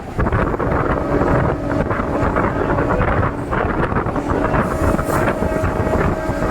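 DEMU train running at speed heard from on board: a steady rumble of wheels on the track mixed with rushing wind, with a steady hum that comes in about a second in and again past the middle.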